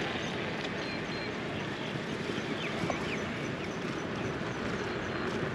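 Steady outdoor noise with a few faint short high chirps.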